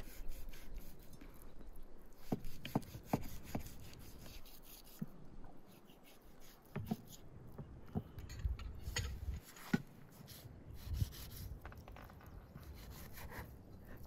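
Large kitchen knife cutting through raw lamb meat and fat on a wooden cutting board, with scraping and rubbing as the blade works, and irregular sharp taps as it knocks against the board.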